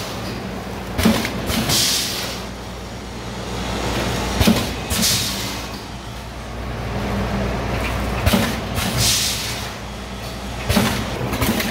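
Automatic vertical granule pouch packing machine running: a steady motor hum, with a knock followed by a short hiss of air repeating about every three and a half seconds as the machine cycles.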